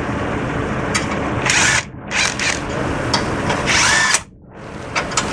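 Cordless drill running in several short bursts, its motor whine rising and falling with each squeeze of the trigger, as fasteners are driven into the truck's lower front bumper trim.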